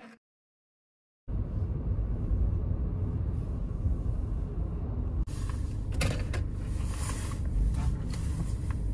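Steady low rumble with a hiss of vehicle noise, starting about a second in, with a brief break partway through and a few clicks after it.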